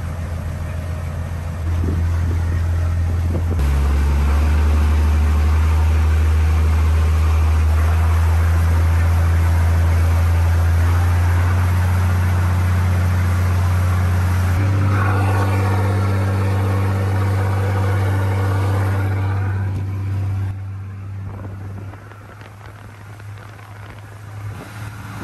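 Yanmar Arashio DE31F boat's inboard diesel engine running steadily under way, a loud low drone over the rush of the wake. The drone's pitch steps up about 15 seconds in, and the sound grows quieter about 21 seconds in.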